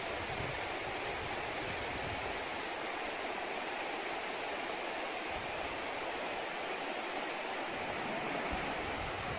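Shallow river flowing over rocks and stones, a steady rushing of water.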